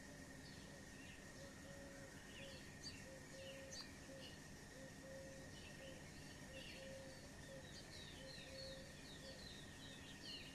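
Small birds chirping faintly in short, scattered high notes that grow busier toward the end. Under them runs a short low note repeated about twice a second, along with a steady high-pitched tone.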